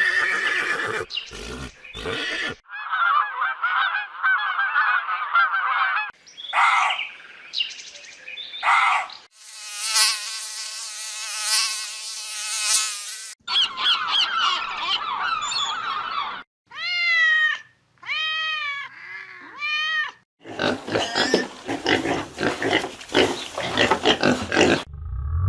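Different animal calls in quick succession, changing every few seconds: chattering chirps, a long buzzing drone, four arching calls that rise and fall, then a stretch of harsh, noisy sound.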